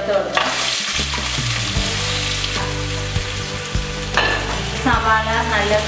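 Sliced onions and curry leaves dropped into hot coconut oil in an aluminium kadai, sizzling loudly as they start to fry. The sizzle starts suddenly just after the start, with a few light knocks of the utensils.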